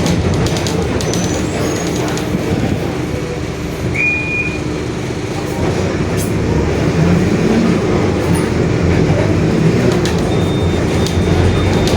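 Inside a Mercedes-Benz OF-1721 Bluetec 5 city bus under way: its diesel engine running under a heavy rumble of drivetrain and body noise, with a growl from the differential. The sound eases a little for a couple of seconds, then grows louder from about six seconds in; a brief high squeak comes about four seconds in.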